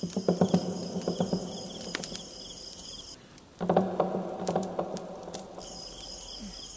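Crickets chirping in a steady night chorus, with two bouts of rustling and crackling, one at the start and one about three and a half seconds in. The cricket sound drops out for about two seconds in the middle.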